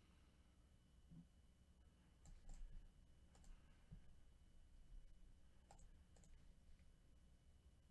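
A few faint, scattered computer mouse clicks over near silence.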